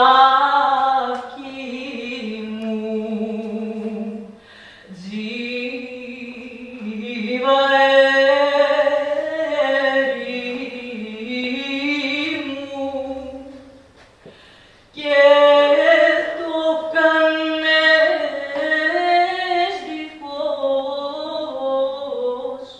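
A woman singing a slow song solo, with no accompaniment, in long held notes with vibrato. She breaks off briefly about four seconds in and again near fourteen seconds, between phrases.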